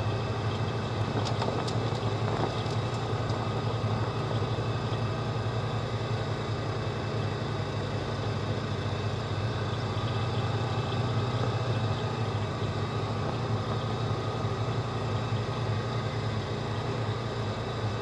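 Polaris Ranger side-by-side's engine running steadily while under way, a low even drone, with a few light clicks about one to three seconds in.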